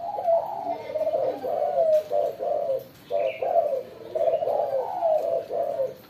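Spotted doves cooing, one rolling coo phrase after another with short pauses between. The coos come from two decoy males set face to face in a rivalry contest.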